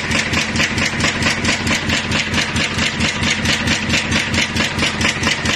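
Double-blow cold heading press running at production speed, an even rhythm of heading blows about four a second (264 a minute) as it forms M5 x 25 screw blanks.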